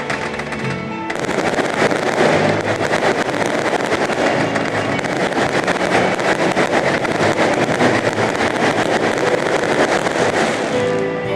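Fireworks display crackling and popping in a dense, rapid barrage over music. The crackle thickens about a second in and thins out near the end.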